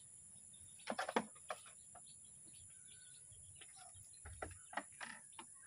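Scattered light knocks and taps of goats' hooves on the wooden slatted floor of a raised goat pen, with a cluster about a second in.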